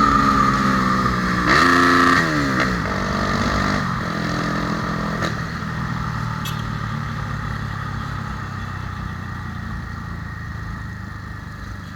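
Honda Tornado motorcycle's single-cylinder engine, bored out to 293 cc, coming down from high revs, blipped up once about a second and a half in, then dropping back to a lower steady run that slowly grows fainter.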